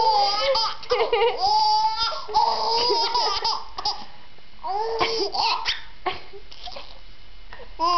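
Baby laughing in repeated high-pitched bursts with short pauses between them.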